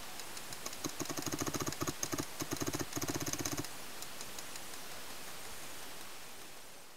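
Paintball marker firing a fast string of shots, about ten a second, in a few short bursts over about three seconds, then stopping. The background fades out near the end.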